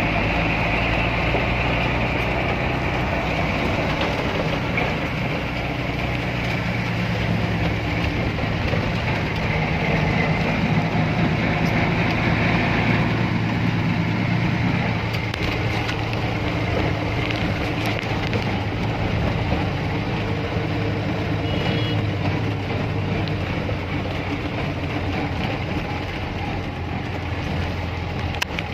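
Truck diesel engine running steadily, heard from inside the cab; its low note drops a little about halfway through.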